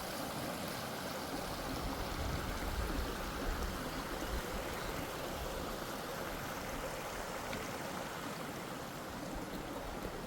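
Steady rushing of a mountain stream, with a low rumble swelling from about two to five seconds in.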